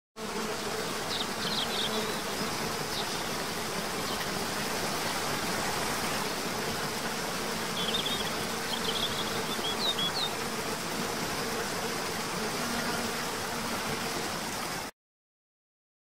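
Waterfall rushing, a steady wash of falling water with a faint low hum under it. Two brief clusters of short high chirps come about a second in and again around eight to ten seconds in. The sound cuts in just after the start and cuts off abruptly about a second before the end.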